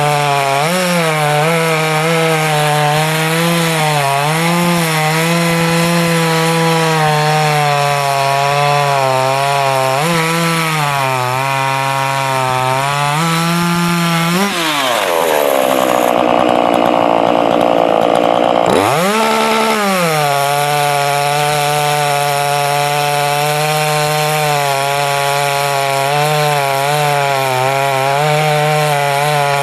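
Ported Dolmar 421 two-stroke chainsaw with Picco chisel chain on a 7-pin rim sprocket, cutting wood at high revs with the engine pitch wavering under load. About halfway through the pitch drops sharply and the engine tone gives way to a rough noise for a few seconds, then climbs back and runs steady.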